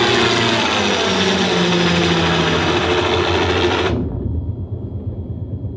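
Film soundtrack played through a Bose Smart Soundbar 300 and bass module: a helicopter scene with a dense rush of noise and rapid rotor chop. About four seconds in the high end drops away abruptly, leaving a low pulsing rotor rumble that fades.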